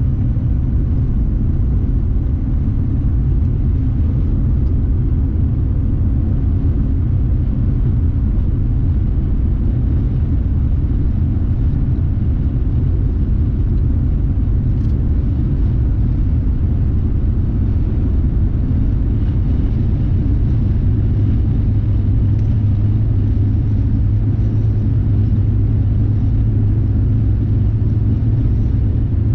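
Steady low road and engine rumble inside a car's cabin while it cruises at highway speed. A low hum grows stronger about twenty seconds in.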